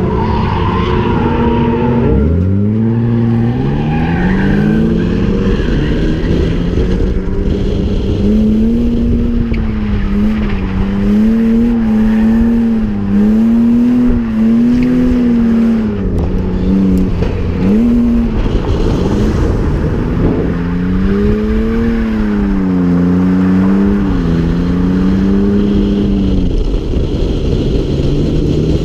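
BMW E36 engine driven hard in drift practice. The revs rise and fall every second or two, with a steep climb about two seconds in, over a steady rush of road and wind noise.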